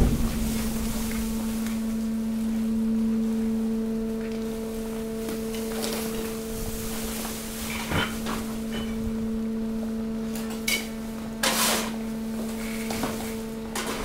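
Hydraulic waste compaction press's pump unit running with a steady hum. A few short knocks and clatters of shifting mixed waste come through, around two thirds of the way in and again shortly after.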